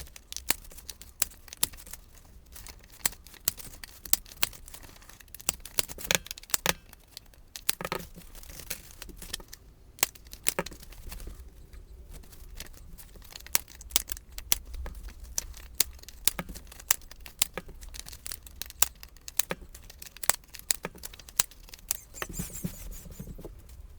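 Corner rounder punch clicking through the bottom corners of paper cards again and again, with paper being handled and shuffled between the sharp clicks.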